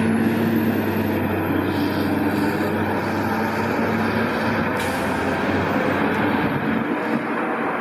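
Fire truck's heavy diesel engine running with a steady low hum under broad road and traffic noise.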